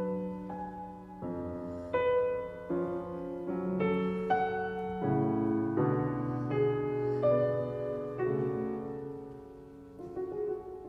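Background piano music, a slow melody whose notes change about once a second and ring on as they fade.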